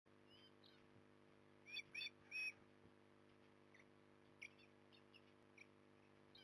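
Young ospreys calling from the nest: a series of short, high chirping calls, three louder ones close together about two seconds in, then fainter scattered ones.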